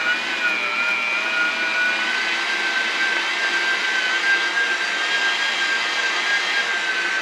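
Electric meat grinder motor running steadily with a high whine, grinding pork steak.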